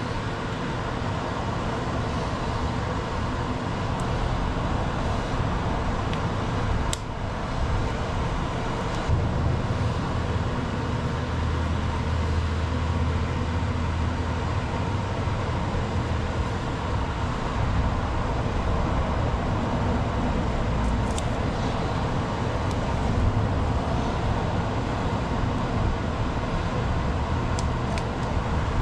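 Steady, fairly loud machine-like background noise with a low hum, broken by a few faint clicks and taps.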